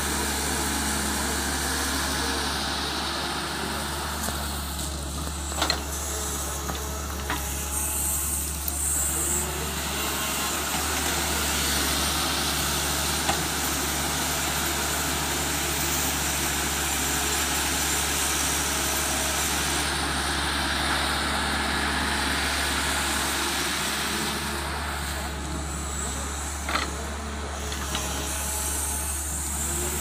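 Tata Hitachi tracked excavator's diesel engine running steadily while it digs and lifts soil, with a few sharp knocks about six seconds in and again near the end.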